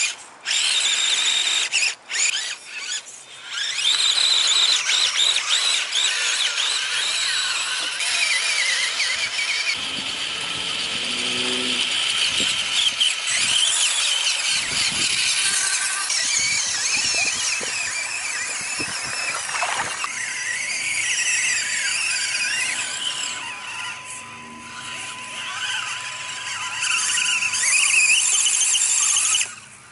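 High-pitched whine of Axial SCX24 micro RC crawlers' small electric motors and geartrains, rising and falling in pitch as the throttle changes.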